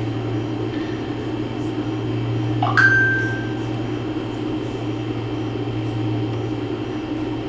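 Steady low machine hum, with a short tone about three seconds in that glides up and then holds for under a second.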